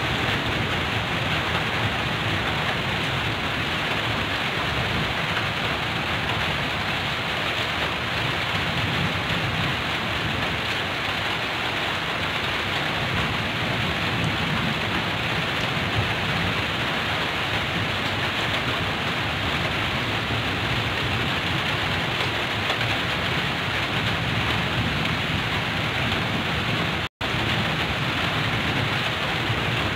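Heavy rain falling on a tin roof as a steady, dense hiss, with low thunder rumbling underneath. The sound drops out for an instant near the end.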